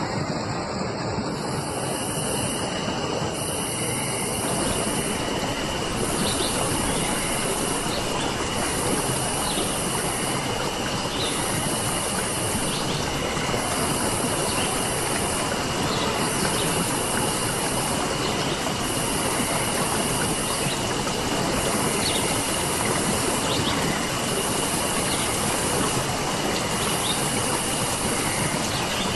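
Steady rushing water. Over it, from about a second in, a steady high whine and a very high shrill trill that pulses on and off roughly every two seconds, with a few short high chirps.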